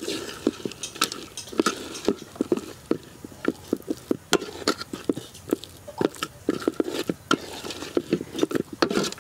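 Metal ladle stirring roasted peanuts through thick jaggery syrup in a metal pot: a run of irregular scrapes and clinks against the pot, several a second, with the peanuts clattering. This is the stage of chikki making where the nuts are mixed into the finished syrup.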